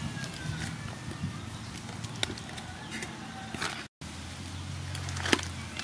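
Crumpled aluminium foil crinkling and rustling as it is pulled open by hand and cut with scissors, with scattered sharp crackles and clicks. The sound drops out briefly about four seconds in.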